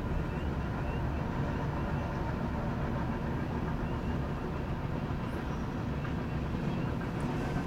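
Freight train of covered hoppers and flatcars rolling steadily past, a continuous low rumble of its wheels on the rails.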